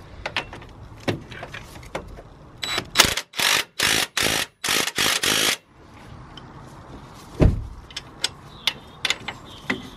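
Spanner tightening a suspension strut bolt: a quick run of about seven short bursts of ratchet clicking, one after another a few tenths of a second apart, followed by scattered metal clicks and a single knock.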